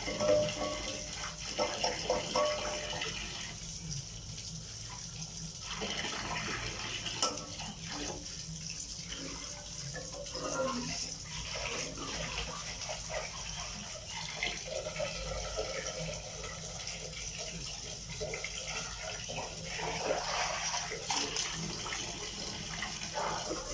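Water running from an outdoor tap and splashing into a plastic basin as stainless steel pots and a kettle are rinsed and scrubbed by hand, with water poured out of the kettle at the start and scattered knocks of metal.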